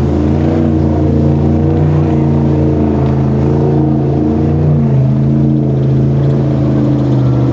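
Motorboat engines running steadily, their pitch wavering slightly up and down.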